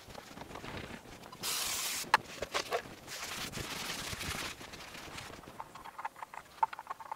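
Cloth rubbing over the metal of a lathe's bed in two bouts, a short louder one about one and a half seconds in and a softer, longer one a little later, with scattered light clicks and knocks of handling. The machine is not running.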